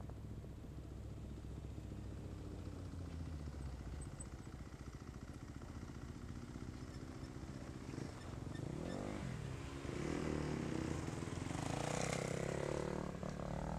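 A dirt bike and a side-by-side UTV passing close by, their engines revving up and down in pitch and loudest in the last few seconds. Under them, the low steady running of the filming vehicle's engine.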